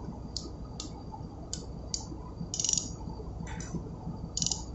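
Ratchet ring spanner clicking in short bursts, roughly every half second, as it is worked back and forth tightening the nuts that draw a starting air valve's piston down level with its body.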